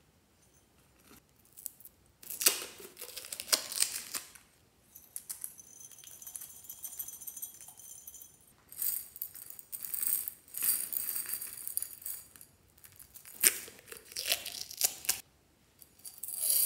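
A gold pineapple-shaped plastic container is handled and shaken, with loose contents rattling inside it. The sound comes in four bursts with short pauses between them.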